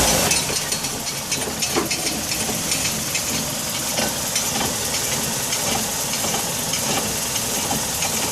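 2004 Nissan Sentra running just after a press of the gas, with irregular metallic clinks and knocks over the engine noise: a clunk that appeared after the engine and transmission were replaced, which the owners suspect comes from the axle.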